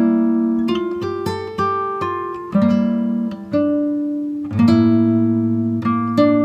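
Background music: acoustic guitar picking and strumming, each note or chord ringing out and fading before the next.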